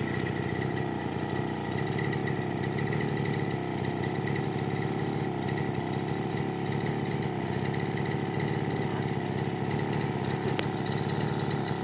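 Backpack brush cutter's small engine running steadily at an even speed, with no change in revs.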